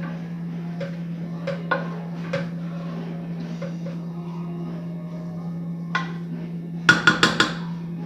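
Cooking utensil knocking lightly against a pan a few times, then a quick run of about five sharp taps near the end, like a spoon being knocked on the pan's rim; a steady low hum runs underneath.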